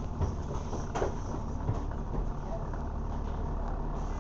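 Double-decker bus's diesel engine idling while the bus stands still, a steady low rumble heard from inside the upper deck, with one short click about a second in.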